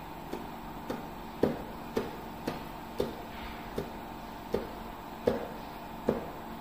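A series of short, sharp clicks or taps, unevenly spaced about one or two a second, over a faint steady hum.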